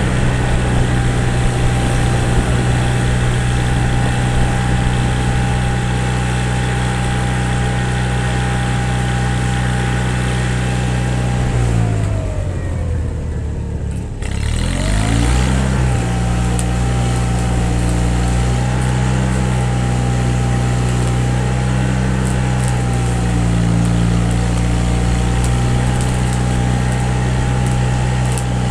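Engine running steadily; about twelve seconds in it slows and drops in pitch for a couple of seconds, then picks back up to its steady speed.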